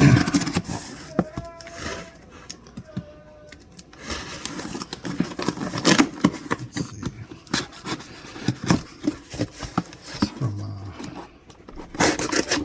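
A cardboard shipping box being handled and opened by hand: a run of scraping, rustling and irregular clicks and taps, with a few short squeaks in the first few seconds.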